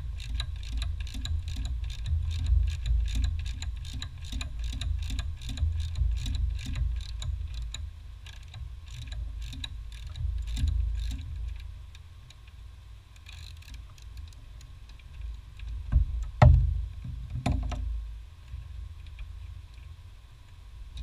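Socket ratchet clicking in quick, even strokes as it turns a nut on the brake master cylinder, stopping about eleven seconds in. A few loud knocks of parts being handled follow around sixteen and seventeen seconds in.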